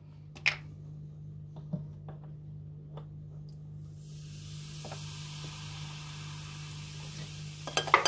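Baking soda fizzing as 9% table vinegar is poured onto it in a small glass cup: a steady high fizzing hiss starts about four seconds in, after a few light clicks of the plastic bottle being handled.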